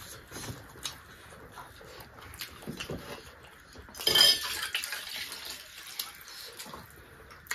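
Eating sounds of people eating rice and chicken gizzard with their hands: small wet clicks and smacks of chewing and of fingers in the food. About four seconds in comes a louder sip from a steel tumbler.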